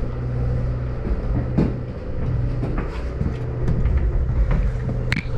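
Party boat's engine droning steadily while underway, heard inside the cabin, with a few short knocks and clatters over it.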